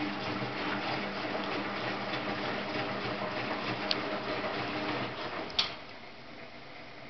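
Bendix 7133 Autowasher Deluxe Electronic front-loading washing machine running its conditioned rinse, with a steady motor hum and water moving in the tumbling drum. About five seconds in the hum stops, a sharp click follows, and the machine goes quieter.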